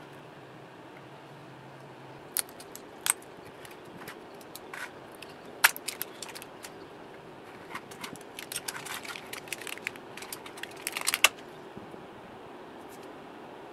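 Sharp metallic clicks, snaps and small rattles of pliers prying a lithium-ion cell and its metal connector strips out of an electric-skateboard battery pack, a few single snaps first and then a busier run of clicks near the end. The cell being removed is the one that ran very hot on the charger, taken for a bad cell.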